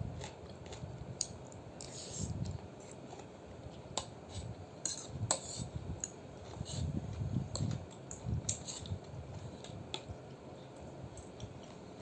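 Eating utensils clinking against a bowl of noodle soup, in scattered sharp clinks with soft low sounds between them.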